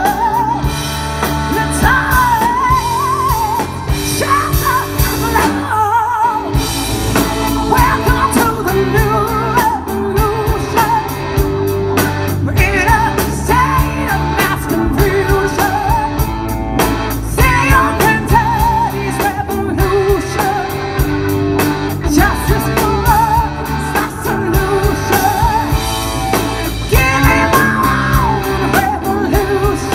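Live rock band playing: a woman singing over electric guitars, bass guitar, drum kit and keyboards.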